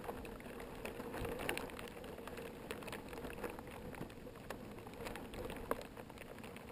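Faint, muffled rustling with scattered light ticks, dry twigs and branches touching the camera's waterproof housing, over a faint steady hum.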